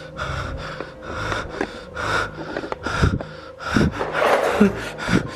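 A man breathing hard and fast, panting in fright, about two breaths a second.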